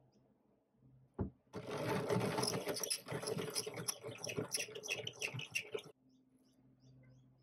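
Mid-century hand-crank pencil sharpener: a single knock about a second in, then the rotary cutters grinding and shaving a wooden pencil, a dense gritty rasp full of fast clicks lasting about four seconds and stopping abruptly.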